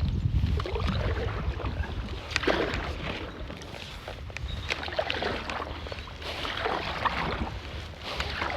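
Stand-up paddle blade dipping and pulling through river water, a splashy stroke about every two seconds, over low wind rumble on the microphone.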